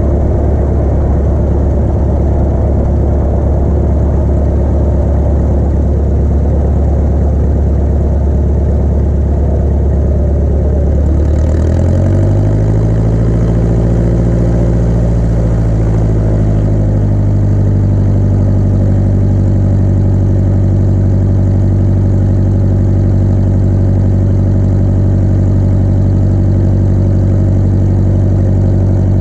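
A Piper Arrow's piston engine and propeller running with a steady drone. About twelve seconds in, the pitch rises, wavers for a few seconds, then settles at a steady higher note.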